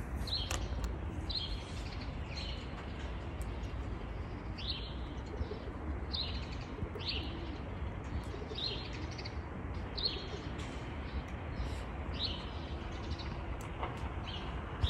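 Small bird chirping repeatedly, short high falling chirps one or two a second, over a low steady hum.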